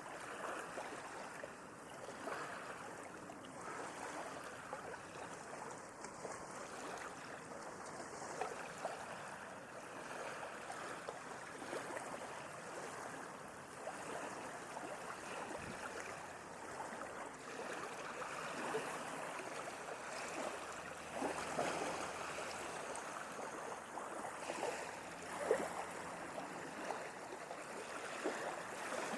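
Gentle sea waves lapping and splashing: a steady wash of water with small splashes and gurgles, swelling slightly in the latter half.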